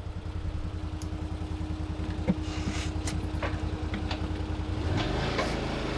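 Side-by-side UTV engine running with an even low pulse, the vehicle knocking and rattling a few times over rough ground; near the end the engine picks up and grows louder as it accelerates.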